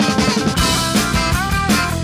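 Background music: rock-style electric guitar over a steady beat.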